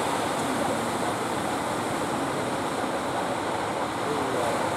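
Surf breaking on the beach: a steady rushing wash of waves.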